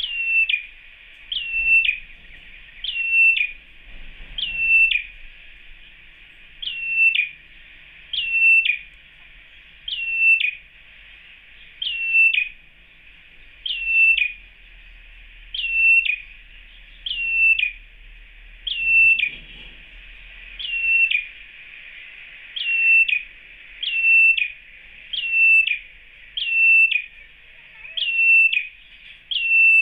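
Red-headed ciblek (prenjak kepala merah) giving the same short, sharp call about once a second, each note dropping quickly from high and then holding level, over a steady high hiss. It is a male calling for a female.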